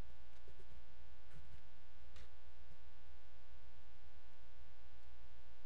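Steady electrical hum, a low drone with several steady higher tones on top, typical of mains hum in a microphone and sound system; a couple of faint ticks rise briefly above it.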